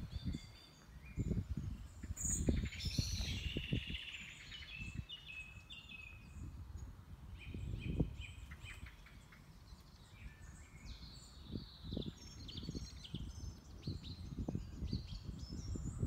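Several songbirds singing and chirping in the trees, short high notes overlapping throughout, with irregular low rumbles on the microphone.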